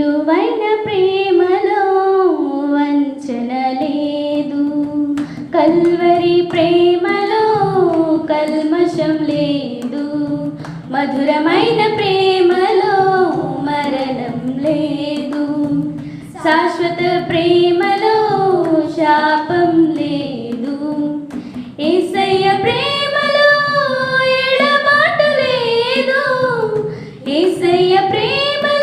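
Group of young women singing a Christian worship song together into one handheld microphone, in phrases of about five seconds with short breaks for breath.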